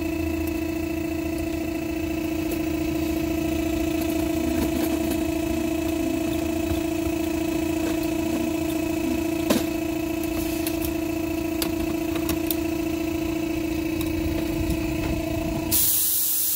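Air compressor running steadily with a constant hum while it builds pressure. Near the end a sudden loud hiss as compressed air is let through a hose into sand, churning it.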